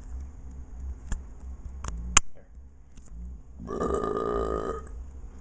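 A boy's burp: one pitched, wavering belch about a second long, starting a little past the middle, preceded by a few sharp clicks.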